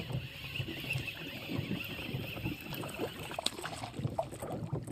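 Wind rumbling on the microphone, with scattered small clicks and rustles.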